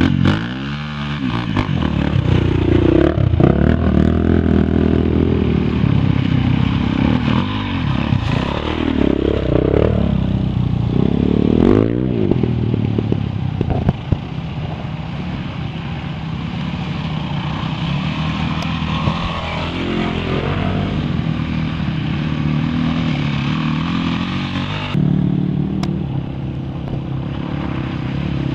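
Several dirt-bike engines revving one after another as the bikes ride through deep mud, the engine note rising and falling repeatedly with the throttle.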